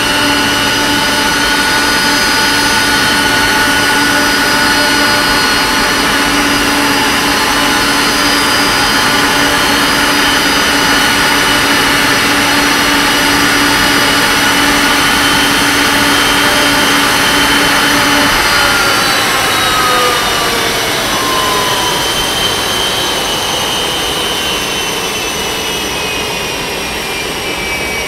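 Boeing 747-400F's Pratt & Whitney PW4000 turbofans running at ground idle, a loud rush with several steady whines. About 18 seconds in, a low hum stops and the whines start falling in pitch as the engines spool down.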